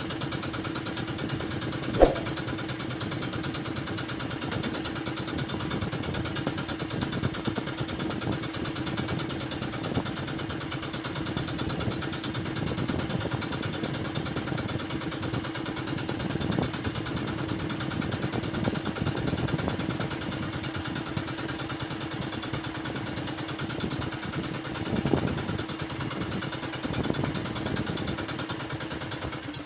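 An engine running steadily at an even speed, with one sharp click about two seconds in.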